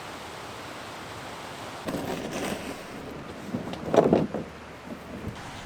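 Steady rush of river rapids, with two louder short noises about two and four seconds in, the second the louder.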